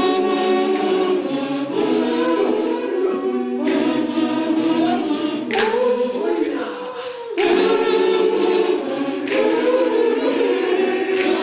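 A group of voices singing together in harmony, like a choir, holding long notes.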